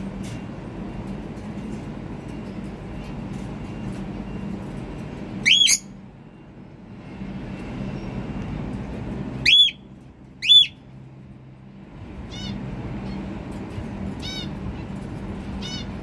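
Cockatiel calling: three loud, short whistled calls that rise and fall, one about a third of the way in and two a second apart just past the middle, then a few fainter, quicker chirps near the end. A steady low hum runs underneath.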